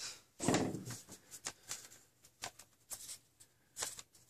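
Scattered light clicks and taps of foam half darts and plastic being handled at a Nerf blaster, with darts set down on the desk.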